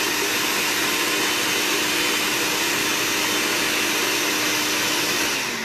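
Countertop blender running steadily, pureeing a green herb sauce, with a constant hum under the whirr. It switches off and winds down near the end.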